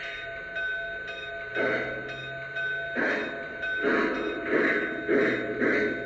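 Lionel Legacy Union Pacific 9000-series 4-12-2 model steam locomotive's onboard sound system playing steam exhaust chuffs. They start slow and quicken to about two a second as the engine gathers speed, over a steady high tone.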